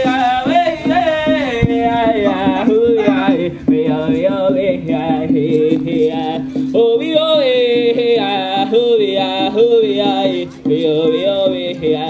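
Powwow song: a group of singers chanting a high, wavering melody over steady drumming, with short breaks between phrases about four and ten and a half seconds in.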